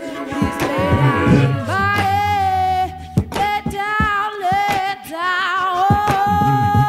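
A woman singing long held notes with a wavering vibrato, cut across by a few sharp percussive hits.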